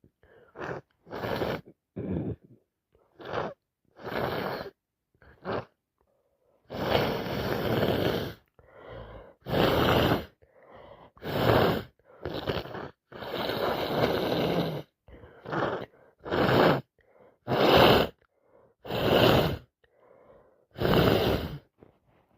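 A woman with a bad cold making a run of loud, harsh breathing noises through nose and mouth: more than a dozen short bursts, a few of them drawn out for a second or two.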